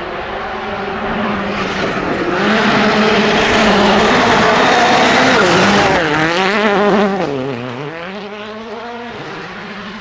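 Volkswagen Polo R WRC rally car's turbocharged 1.6-litre four-cylinder engine at high revs as it comes up a gravel stage, loudest as it slides past about six seconds in. Its pitch wavers and drops with lifts and gear changes, then the sound fades away, with loose gravel spraying from the tyres.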